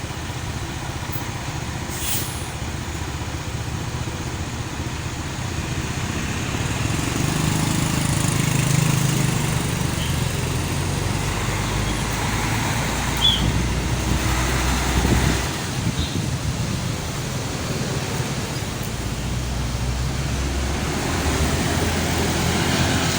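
Large diesel bus engine running with a steady low hum that grows louder around the middle, with street traffic around it. A short hiss about two seconds in.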